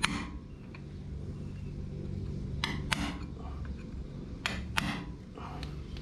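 Hammer striking a punch against a freeze plug in a Ford N-series engine block, sharp metal-on-metal blows: one at the start, then two quick pairs of strikes. The weeping plug is being knocked into the water jacket so it can be pulled out.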